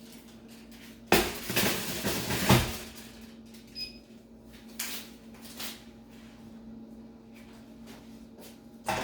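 Oven door opened and a foil-lined baking tray slid onto the metal rack with a clatter, then the door shut about two and a half seconds in. A few lighter clicks and knocks follow over a steady low hum.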